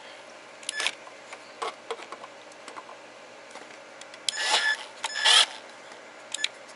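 Power drill triggered in short bursts, its motor whining as a large bit starts into the fridge's battery-compartment door. Two quick pulses come in the first two seconds, then two longer runs about four and five seconds in.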